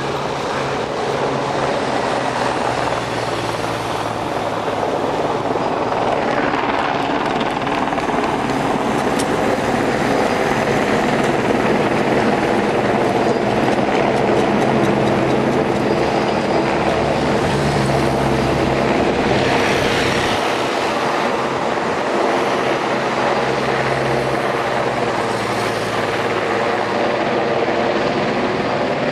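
Steady drone of a helicopter overhead, mixed with the engines of race motorcycles passing.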